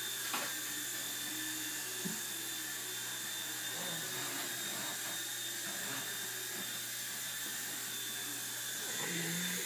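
Align T-Rex 100 micro RC helicopter in flight: the steady, high-pitched whine of its small electric motor and spinning rotor.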